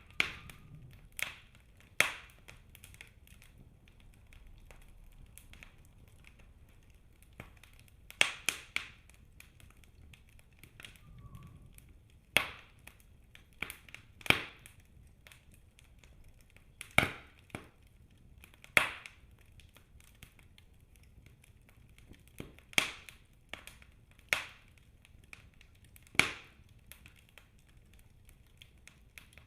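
Wood fire burning in a fireplace: sharp, irregular crackles and pops a second to a few seconds apart, some coming in quick clusters, over a faint low rumble.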